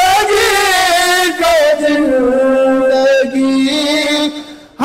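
Two men singing a naat in Shina together, drawing out long held notes with slow bends in pitch, breaking off briefly just before the end.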